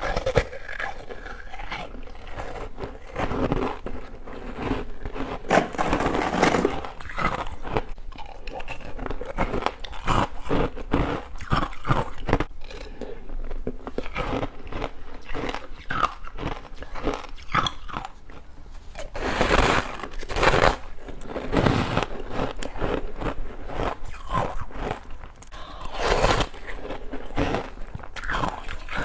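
Person biting and chewing crunchy frozen frost ice close to the microphone, a steady run of crunches with a few louder bites.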